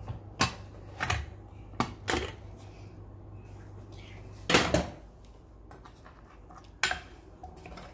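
Pressure cooker being opened: clicks and clatters of its plastic handle and steel lid as it is unlocked and lifted off, the loudest clatter about four and a half seconds in, then a ladle knocking in the steel pot near the end.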